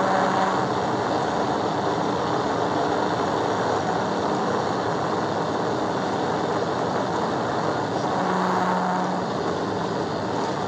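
Steady rush of wind, tyre and engine noise from a police patrol car driving at about 130 mph in pursuit. A faint low hum comes in briefly near the start and again about eight seconds in.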